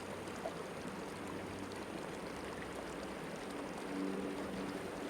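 Steady outdoor background hiss with no clear event, and a faint low hum that swells slightly about four seconds in.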